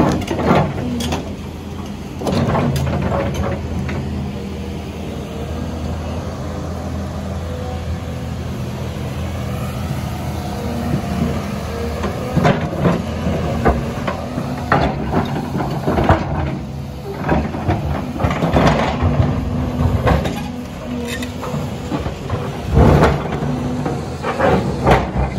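Heavy diesel construction machinery running steadily, with repeated knocks and thuds scattered through it.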